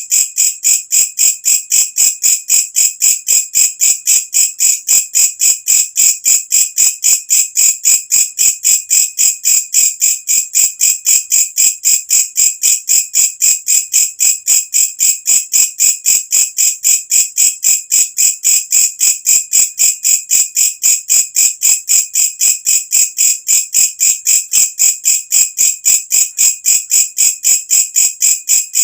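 Walang kecek katydid (bush cricket) calling: a loud, shrill chirp repeated evenly, about three times a second, without a break.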